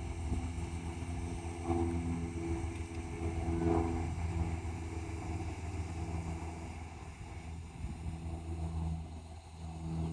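A motor running steadily with a low, even hum, swelling briefly about two and four seconds in.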